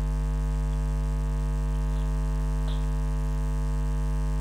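Steady electrical mains hum with its string of overtones, unchanging in pitch and level, with one faint click about two and a half seconds in.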